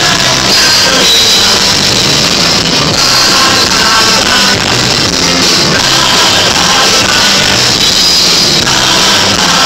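A live rock band playing loudly: a male lead singer sings into the microphone over accordion, electric guitar and drum kit.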